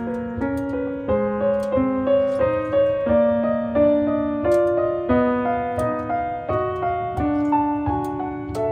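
Background piano music with a steady flow of notes.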